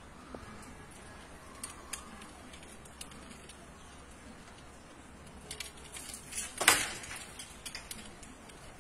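Tree climber's gear clinking and knocking against the trunk: a few light clicks, then a cluster of clatters with one louder knock about two-thirds of the way through. The chainsaw is not running.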